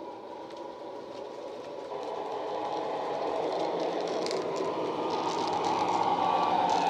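Sound-fitted Hornby OO gauge Class 60 model diesel locomotive: its DCC decoder plays the Howes Class 60 diesel engine sound through an EM1 and a bass-enhanced speaker, a steady engine drone growing steadily louder as the loco approaches.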